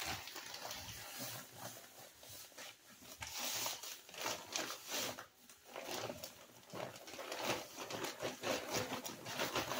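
Playground sand pouring out of a 50-pound plastic bag in irregular rushes, with the bag rustling as it is shaken and emptied.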